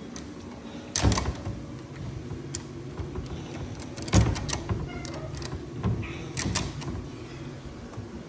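Several knocks and bangs as a monkey tugs at a kitchen cabinet door and clambers on the countertop. The loudest comes about a second in and another just after four seconds, with smaller knocks between.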